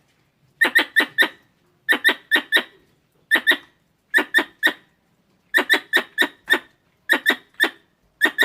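Squirrel chirping calls in short runs of three to five sharp chirps, about one run a second, with dead silence between runs. This is the kind of squirrel call played to lure squirrels in.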